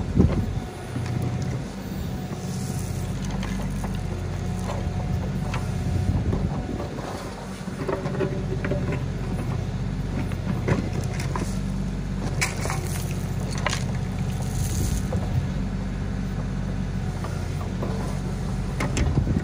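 Kioti DK4510 tractor's diesel engine running steadily under work while digging, with scattered clanks and knocks and a sharp knock right at the start.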